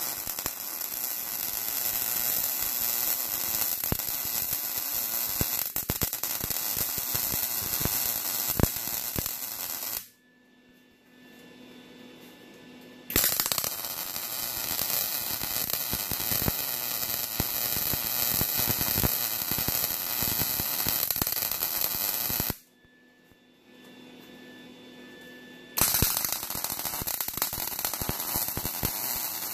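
Lincoln 180 HD MIG welder running 75/25 argon-CO2 gas, laying weld beads on a steel rail: a steady crackle that runs about ten seconds at a time, three times. The arc cuts off abruptly after the first two beads, leaving only a faint hum for about three seconds before the next bead starts.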